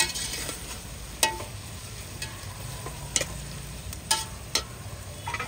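Sliced onions and whole spices frying in hot mustard oil in a pot, a steady sizzle as they are stirred to brown them golden. Several sharp clicks and knocks, the loudest sounds, come through it: one at the start, one a little after a second in, and three more later on.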